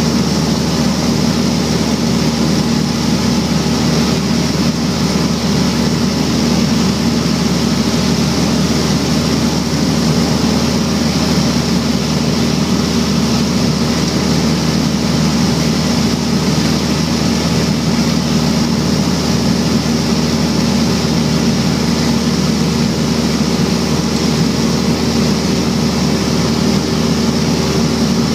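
Single-engine piston propeller plane's engine and propeller droning steadily at cruise, heard from inside the cabin along with the rush of air.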